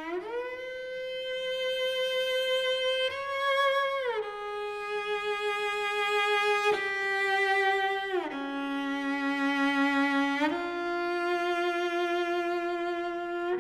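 Slow violin melody of long held notes, sliding up or down into each new note, with two notes sounding together for a stretch near the end.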